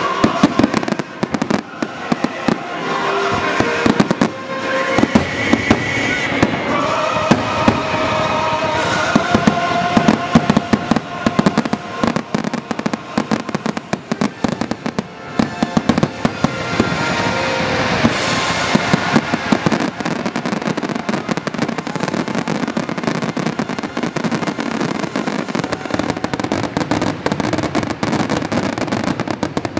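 Fireworks going off in rapid, irregular bangs, with music playing through roughly the first half. In the second half the bursts thicken into dense crackling.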